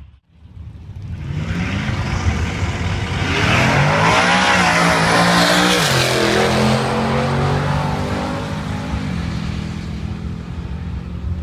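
Twin-turbocharged 2014 Ford Mustang GT's 5.0 Coyote V8 at full throttle on a drag-strip pass, its note rising in pitch and getting loud as the car accelerates. About six seconds in the pitch drops sharply as the car goes past, then the engine fades as it runs away down the track.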